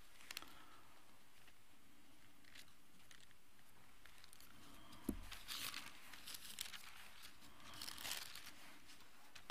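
Faint rustling and crinkling of thin Bible pages and paper being leafed through, with a soft knock about halfway through.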